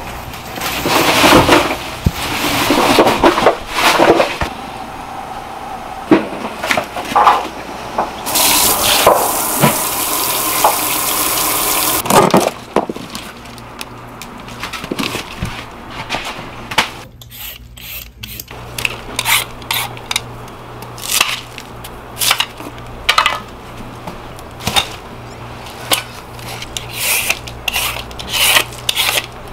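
Restaurant kitchen work: a few seconds of water running from a tap, then a long series of separate clinks and knocks of dishes, pots and utensils.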